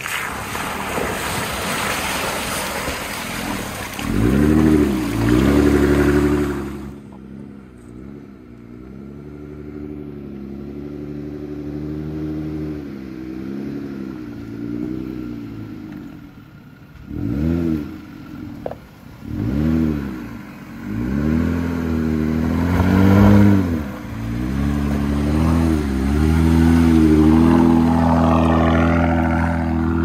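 Jeep Gladiator's engine revving in repeated rising and falling swells as it crawls over a rutted dirt trail. Rushing, splashing creek water dominates the first few seconds.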